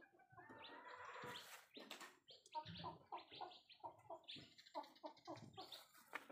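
Chickens clucking faintly, a quick run of short clucks through the second half.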